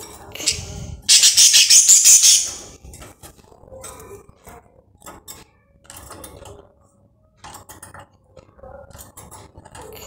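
Pet budgerigars in a wire cage: a loud, harsh burst of squawking or flapping starts about a second in and lasts about a second and a half. After it come scattered light clicks and rattles against the cage bars.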